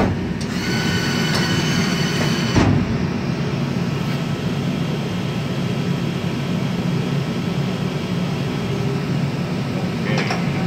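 Monforts RNC 500 CNC lathe running: a steady low machine hum, with a high whine for the first couple of seconds that ends in a sharp clunk about two and a half seconds in, then a fainter whine.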